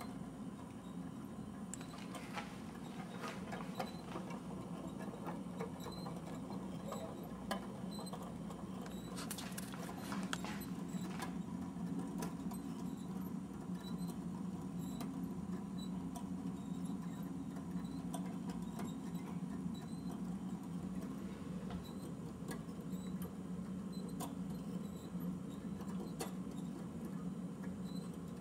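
Kinetico 3-Man Clock Junior kinetic clock running: a steady low motor hum under scratchy clicking and rattling from its moving parts, with a busier run of rattling about ten seconds in, and a light regular tick throughout.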